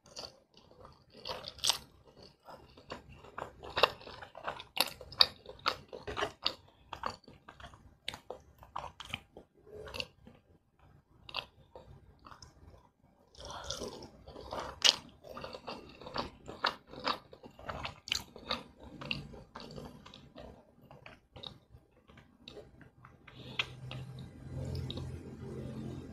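Close-miked eating of spicy cheese instant fried noodles (mi goreng): chewing, noodles being sucked in, and a steady run of sharp wet mouth clicks and smacks, with a short quiet pause about halfway through. A low steady hum comes in near the end.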